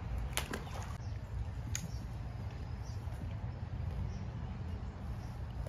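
A small bass thrown back into the lake lands with a brief splash about half a second in, and a second short sharp sound follows about a second later. A steady low rumble and faint bird chirps run underneath.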